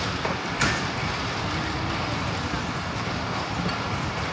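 Passenger train in motion, heard from the carriage doorway: the steady running noise of the coaches on the track, with one sharp click about half a second in.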